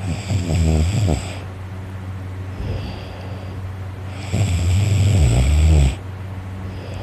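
A sleeping man snoring heavily: two loud snores, each lasting about a second and a half, one at the start and one about four seconds later, over a steady low hum.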